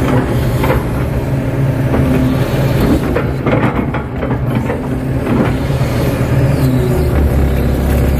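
Kato HD512E crawler excavator's diesel engine running steadily under working load, heard from inside the cab, with the hydraulics driving the bucket along a mud embankment. A few short knocks sound over the engine.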